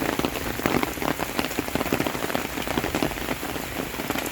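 Heavy rain falling in a downpour, a dense, steady hiss of countless drops striking the surfaces around the microphone.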